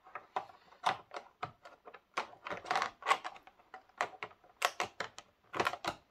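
Clear plastic model-coach display box being handled and packed away: an irregular string of plastic clicks and knocks, with a denser clatter a little under halfway through.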